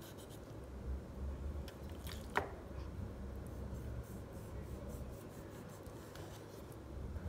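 Sharp kitchen knife cutting slits into raw skin-on chicken on a wooden chopping board: faint slicing and rubbing, with one sharp tap about two and a half seconds in.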